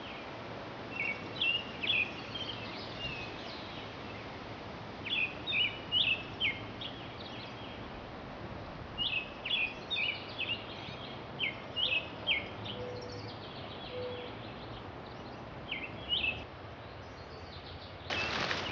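Wild birds singing in woodland: short, high chirping phrases come every few seconds over a steady outdoor hiss. Near the end a sudden burst of rustling with a few knocks.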